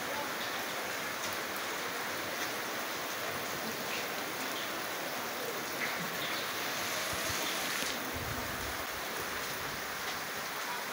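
Steady heavy rain pouring onto bare earth, puddles and foliage, with a brief low rumble about eight seconds in.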